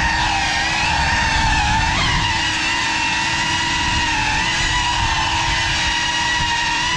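GEPRC Cinelog35 6S cinewhoop quadcopter in flight: its brushless motors and ducted propellers make a steady high whine that wavers in pitch as the throttle changes, with a brief wobble about two seconds in.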